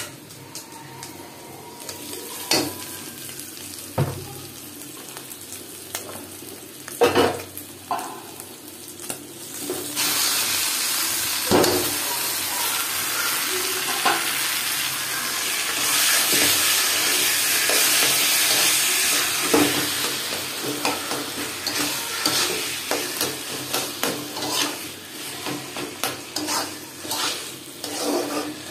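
Chopped taro leaves frying in hot oil in a kadai, sizzling steadily, while a metal spatula scrapes and knocks against the pan as they are stirred. The first stretch is quieter with a few sharp knocks; the sizzling swells to a loud steady hiss about a third of the way in.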